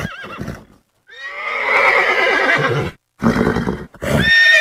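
A horse neighing: one long whinny about a second in, lasting about two seconds with a quavering pitch, then shorter calls near the end.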